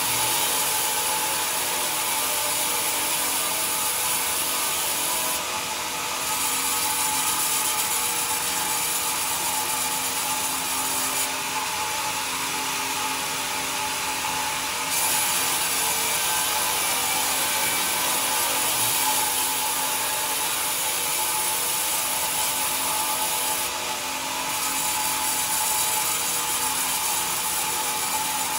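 Band sawmill running steadily, its blade cutting through a pine timber as the carriage feeds it past: a continuous hiss of sawing with a steady machine tone underneath. The noise dips slightly twice, about six seconds in and near the end.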